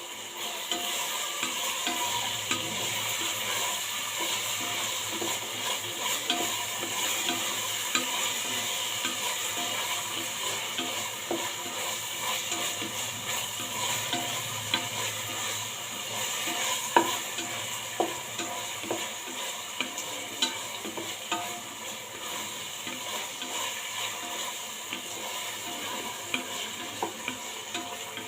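Food sizzling as it fries in a pan, stirred with a metal spoon that clicks and scrapes against the pan again and again, with one sharper knock partway through.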